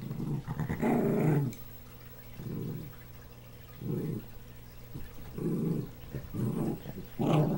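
Small dog growling in a series of short low bouts, about seven, the loudest about a second in and again near the end.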